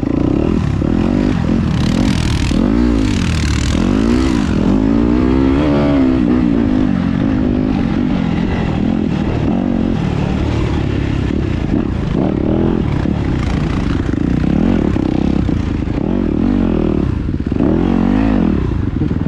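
Yamaha YZ250FX dirt bike's single-cylinder four-stroke engine being ridden, its pitch rising and falling again and again with the throttle. Bursts of rushing noise come about two to four seconds in.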